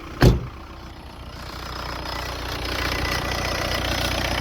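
A single loud thump near the start, then the 2003 Jetta TDI's four-cylinder turbodiesel idling, growing louder over the next couple of seconds and then steady.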